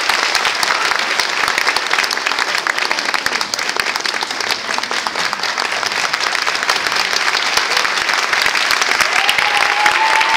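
Audience applauding steadily. Near the end, one long high call rises above the clapping.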